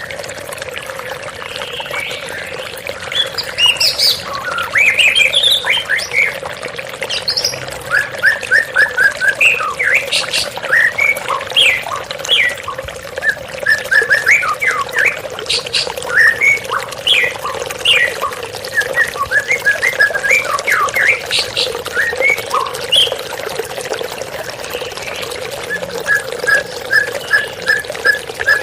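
White-rumped shama (murai batu) singing: quick varied whistled phrases and runs of evenly repeated notes. It sings over the steady rush of a waterfall.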